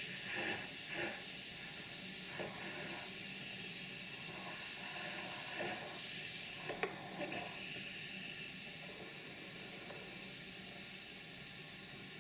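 Sage Dual Boiler espresso machine's steam wand frothing milk in a stainless steel jug: a steady hiss with a few short sputters in the first eight seconds, then a slightly quieter, even hiss.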